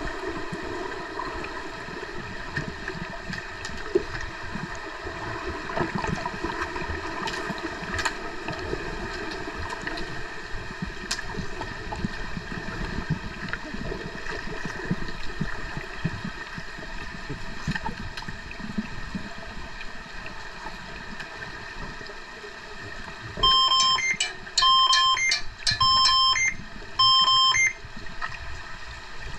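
Underwater hockey referee's underwater buzzer sounding four electronic beeps about a second apart near the end, the signal that stops play. Before them, the steady underwater rush and hiss of the pool with the splashing and finning of players.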